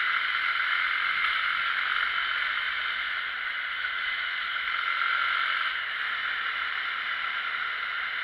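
Steady rushing wind noise over the microphone of a motorcycle moving at road speed, easing slightly near the end.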